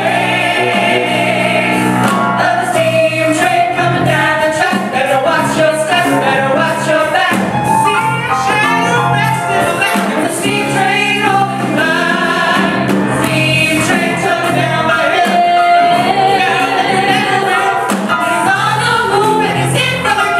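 Live singers with band accompaniment: a lead voice and backing singers singing over piano and other instruments, with sustained low notes underneath.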